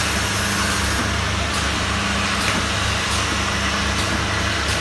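Small-bottle filling and capping machine running: a steady motor hum with a low drone, with a few faint clicks as the rotary turntable indexes the bottles onto the conveyor.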